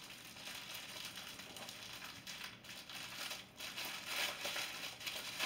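Plastic packaging crinkling on and off as a bagged item is handled.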